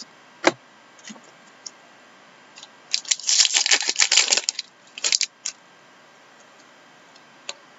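Trading cards being handled: a sharp click about half a second in, then a burst of crisp flicking and rustling of cards about three seconds in, with a few lighter clicks.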